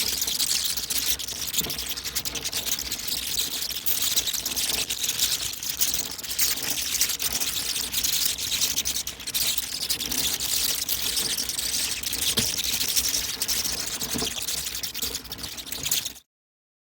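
A mass of bats flying out of a roost: dense, high-pitched chittering and clicking from hundreds of animals at once. It cuts off suddenly near the end.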